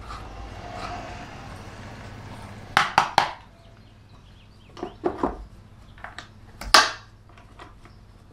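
A new air filter being fitted into the air-cleaner housing of a Kubota BX23S tractor. It starts with a rubbing, rustling sound as the element goes in. The cover then goes on with sharp plastic clicks and snaps: three in quick succession about three seconds in, a couple more around five seconds, and a louder snap near the end.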